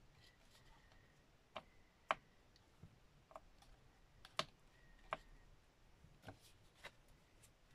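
Faint, scattered light clicks and taps of small wooden embellishments being handled, picked up off a cutting mat and pressed onto a card, about nine in all at uneven intervals, the sharpest about two seconds in and again a little past four seconds.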